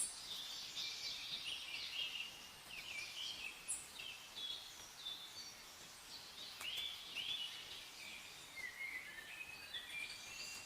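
Several birds chirping and singing at once, a steady stream of short chirps and whistled phrases overlapping one another.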